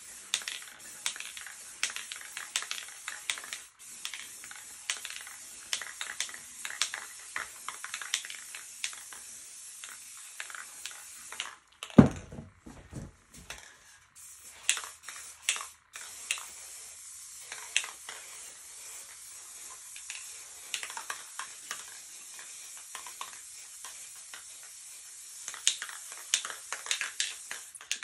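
Aerosol spray paint cans hissing in long sprays, with many small clicks through the hiss. The spraying stops about 11 seconds in, a single loud knock follows, and spraying starts again about 16 seconds in.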